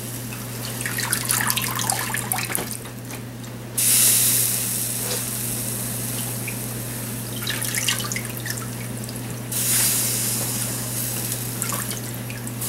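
Water running and dripping off a bunch of blanched Swiss chard held up in tongs, splashing into a tub of water, with a louder, steady stretch from about four to nine and a half seconds in. A steady low hum runs underneath.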